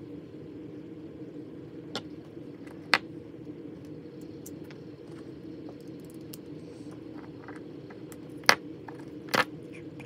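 Small sharp clicks and taps from handling a drone's plastic gimbal parts and a precision screwdriver on a tabletop, four of them louder, at about 2, 3, 8½ and 9½ seconds in, over a steady low hum.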